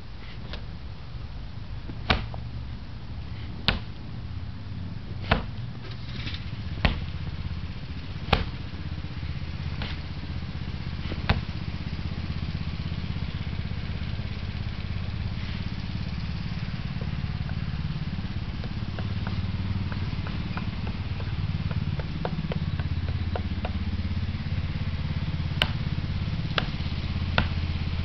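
Sharp knocks from martial-arts strikes, every second or two at first and then a quicker run near the end as blows land on a padded wooden post. Under them runs a steady low rumble that slowly grows louder.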